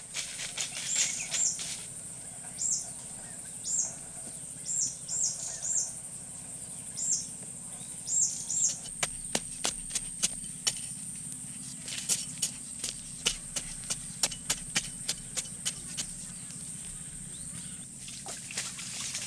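A steel spade chops into a mound of loose sandy soil in a run of quick, sharp scraping strikes, two or three a second, starting about halfway in. A steady high-pitched insect drone runs underneath, and short high chirps come in the first half.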